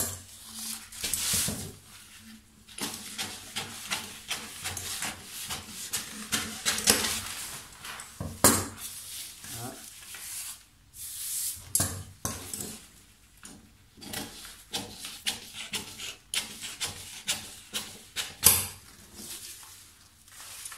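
Stiff paper pattern pieces rustling and crackling as they are handled, lifted and shifted on a table, with many irregular sharp clicks and taps.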